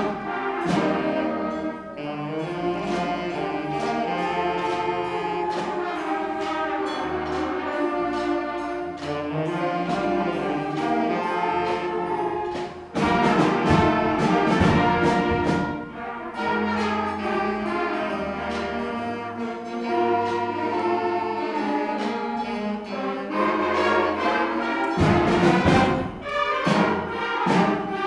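Middle school concert band playing a winter holiday medley: winds and brass holding chords over a regular drum beat, swelling louder for a few seconds around the middle and again near the end.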